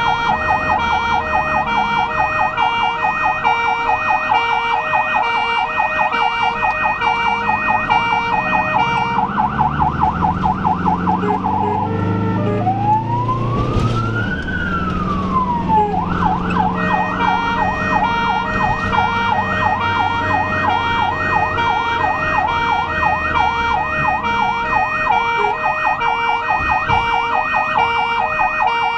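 Ambulance siren sounding on an emergency run, heard from the vehicle's own cab as a rapid warbling yelp. About halfway through it switches to a single slow sweep that rises and falls, then goes back to the fast yelp. The engine and road rumble run underneath.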